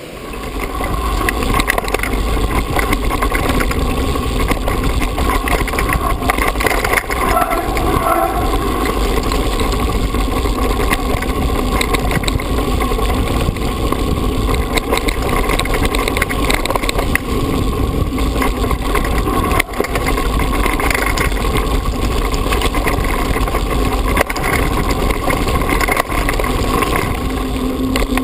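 Mountain bike riding fast over a rough, stony lane, picked up by a GoPro on the bike or rider: a steady rumble of wind on the microphone and tyres on gravel, with rattles and knocks from the bike over the stones. It gets loud about a second in.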